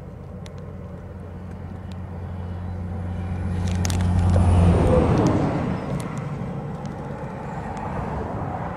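A road vehicle passing by: its noise builds to a peak about halfway through and then fades, with a smaller swell near the end.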